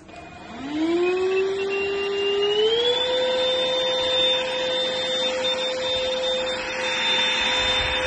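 Airbot Supersonics 3.0 cordless stick vacuum switching on: the motor spins up with a rising whine and settles at a steady pitch. About two and a half seconds in it steps up to a higher, steady whine and runs on.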